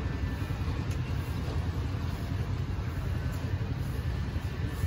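Steady low rumble of vehicle engines and street traffic along a road under construction.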